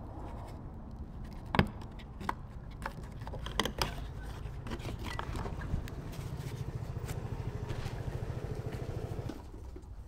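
Sharp plastic clicks and knocks as the rear fog light housing is handled and worked loose, the loudest about one and a half seconds in. In the second half, a vehicle engine runs steadily for about three seconds, then stops.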